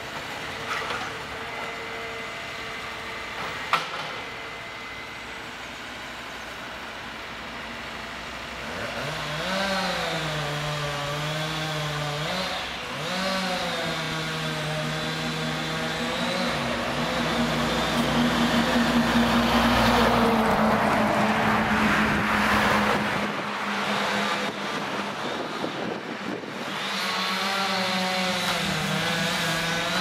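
John Deere 1470E forestry harvester's diesel engine running, steady at first, then revving and wavering in pitch under hydraulic load from about nine seconds in as the crane and harvester head work a tree. Several seconds of rushing noise come past the middle, and a few sharp knocks sound near the start.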